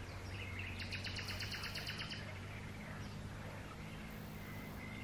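A bird's rapid, evenly pulsed trill lasting about two seconds, with a thin high note near the end, over a faint steady low hum.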